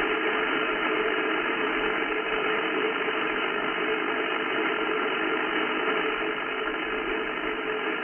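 Steady hiss of band noise from an Icom IC-7300 transceiver receiving on the 11 m band in upper sideband, with no station transmitting. The hiss is cut off above about 3 kHz by the sideband filter, with a few faint steady whistles under it.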